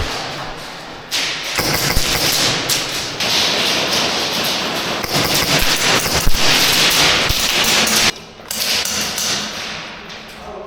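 Airsoft guns firing rapid full-auto bursts, a dense run of mechanical clicks and BB impacts. The firing starts about a second in and cuts off sharply about eight seconds in, leaving quieter scattered clicks.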